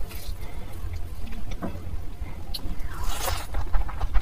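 Fingers mixing fried rice with curry gravy on a plate: soft squishing, scraping and small clicks over a steady low hum. A louder hissing burst comes about three seconds in, as the handful is lifted to the mouth.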